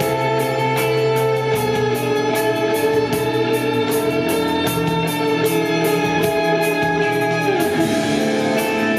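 A live rock band playing, led by electric guitars holding sustained chords over a steady beat of about four hits a second.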